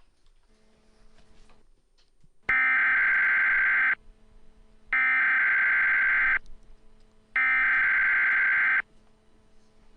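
Emergency Alert System SAME header tones: three identical bursts of a shrill digital data screech, each about a second and a half long with a second's pause between them. They encode the alert's coded message (originator, event type, affected area) at the start of an emergency alert.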